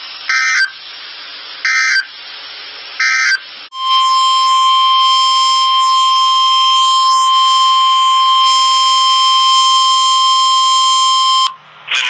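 NOAA Weather Radio EAS signal received over radio hiss: three short bursts of SAME digital data chirps, then the loud steady 1050 Hz warning alarm tone. The tone holds for about eight seconds and cuts off suddenly near the end. Together they announce a new severe thunderstorm warning.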